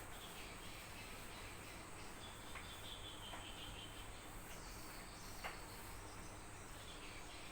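Faint steady background noise, with a high chirping in the middle and a few light clicks, the sharpest about five and a half seconds in.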